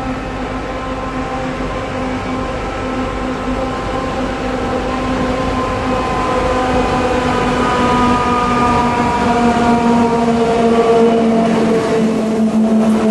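Electric railcar approaching and passing close, with a steady whine from its motors and gears that slowly falls in pitch over the rumble of wheels on the track. It grows louder as the train draws level near the end.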